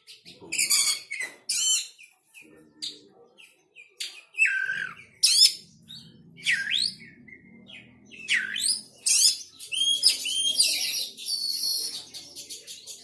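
Songbird calling in quick, varied chirps: sharp high notes, some sweeping down and back up, coming in clusters about every second, with a denser run of chirps near the end.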